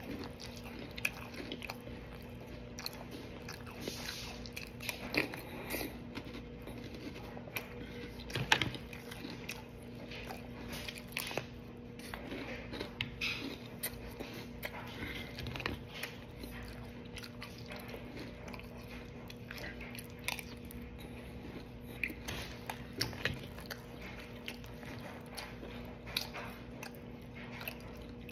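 Close-up chewing of a mouthful of Cap'n Crunch cereal in milk: a long run of irregular crisp crunches and wet mouth sounds.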